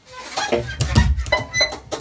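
Free-improvised experimental music from a small acoustic ensemble: short, irregular bursts of instrument sound, with a deep rumble swelling about a second in.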